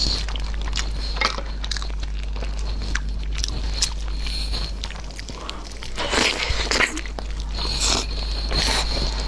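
Close-up eating sounds of meat on the bone: wet biting, tearing and chewing with scattered small clicks, busiest about six to seven seconds in.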